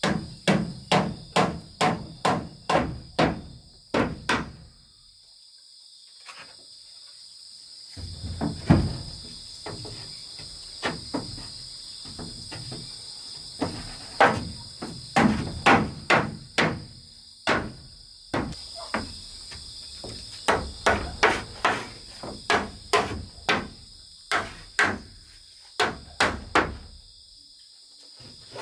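A hammer strikes a wooden post or board in the cabin's wall framing, in runs of quick blows, a little over two a second at first. It stops for a few seconds about four seconds in, then starts again in irregular bursts. Insects buzz steadily and high-pitched behind it.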